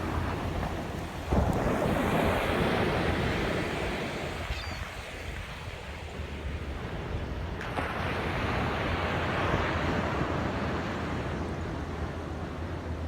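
Atlantic ocean waves breaking on the beach: a wave crashes about a second in and its wash fades, then another swells and breaks about halfway through. Wind buffets the microphone throughout as a low rumble.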